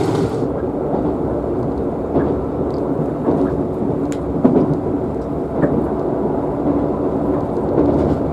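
Running noise inside a Kintetsu 'Blue Symphony' limited express carriage at speed: a steady low rumble of wheels on rails and body noise, with a few sharp clicks.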